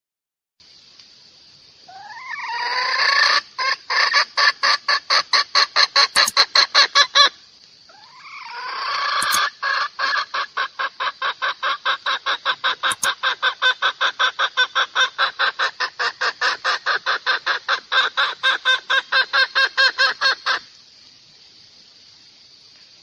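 A hen cackling in two long runs, each opening with a rising call and breaking into rapid, even clucks about six a second; the second run is much longer. It is a hen's call that draws a rooster.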